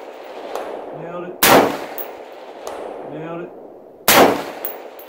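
Two rifle shots from an AR-15 in .223 Wylde, about 1.4 s and 4.1 s in, each ringing out and fading over about a second. Between them comes a fainter, short metallic ring, the sound of a bullet striking a steel target downrange.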